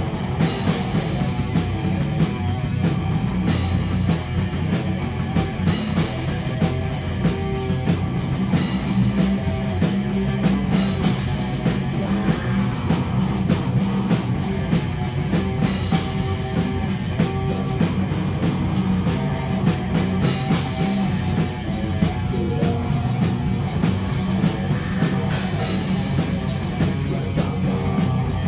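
Loud live rock music driven by an acoustic drum kit, drums and cymbals struck continuously with no break.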